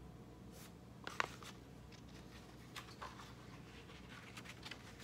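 Faint rustling and soft taps of a picture book's paper pages being handled and turned, with a sharper tap about a second in.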